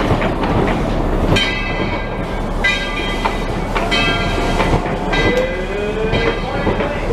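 Narrow-gauge passenger cars rolling slowly past, steel wheels clicking over the rail joints, with short high-pitched squeals from the wheels coming again and again, about every second and a half.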